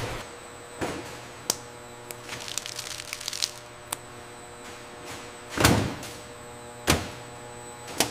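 Steady hum of processing-line machinery, broken by several sharp knocks, the loudest a heavier thud a little past halfway and another about a second later.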